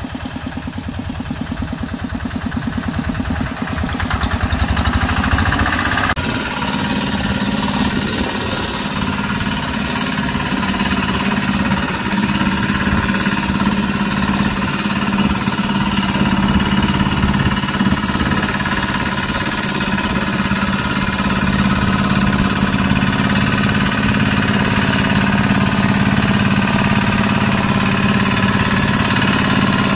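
Two-wheel hand tractor's single-cylinder diesel engine running with a fast pulsing beat. It gets louder about four seconds in and runs steadily after that.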